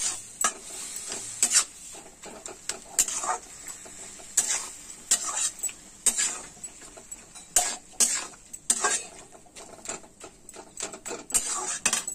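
Metal spatula stirring and scraping greens and diced vegetables around a metal kadai, in irregular strokes about once a second.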